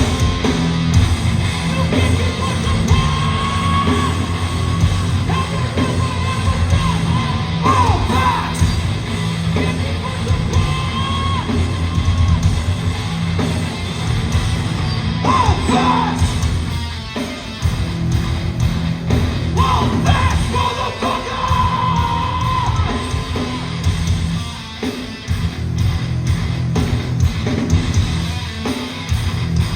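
Live hardcore band playing loud: heavy distorted guitars, bass and drums, with shouted vocals over them.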